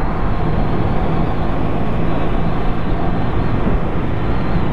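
Triumph Bonneville T100's parallel-twin engine running at a steady cruise under way, its pitch holding level, with a steady rush of wind over the microphone.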